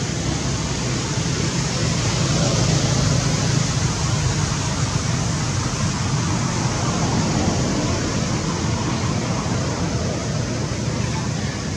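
Steady outdoor background noise: an even, fairly loud hiss over a low rumble, with no distinct calls or knocks.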